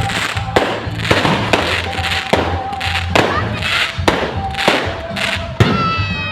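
Fireworks going off in a rapid salvo, a sharp bang every half second to a second, with music playing underneath.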